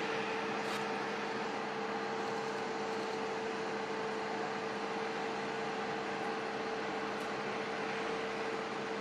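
Steady rushing noise under a constant droning hum: the running engines and pumps of airport fire trucks and the blaze of a burning airliner. Two faint clicks come early and late.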